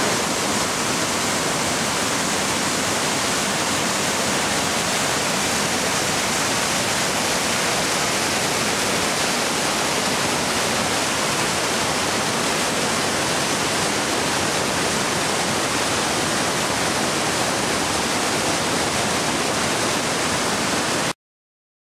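Waterfall and creek white water rushing over boulders: a loud, steady rush of water that cuts off suddenly near the end.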